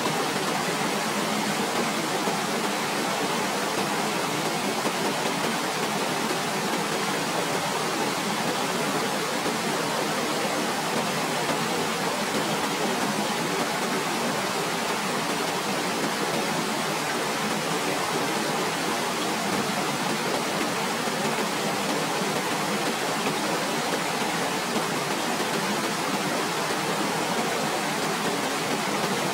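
Waterfall: water falling in a steady, unchanging rush with no other sound.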